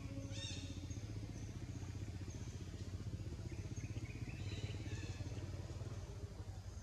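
Steady low rumble of an engine running nearby, with a few faint high chirping calls over it, about half a second in and again around the middle.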